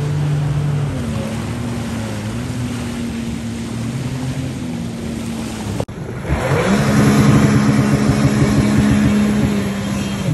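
Jet ski engine running over the water, its pitch wavering. The sound breaks off abruptly about six seconds in; then a jet ski revs up, its pitch rising, and runs louder at a steady pitch as it speeds off, with a hiss of water and wind.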